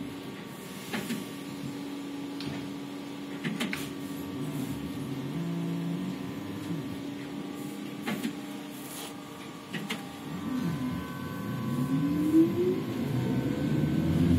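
Ikarus-Ganz 280.94 trolleybus with Ganz electric traction equipment: a steady electrical hum broken by a few sharp clicks, then about eleven seconds in the traction motor starts up with a rising whine as the trolleybus pulls away.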